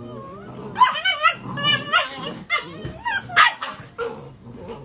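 Seven-week-old Great Dane puppies yipping and whining as they wrestle in play. The calls are short, high and come in quick succession.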